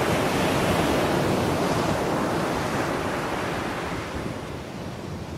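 Ocean waves washing in a steady rushing surf, fading slowly over the last couple of seconds.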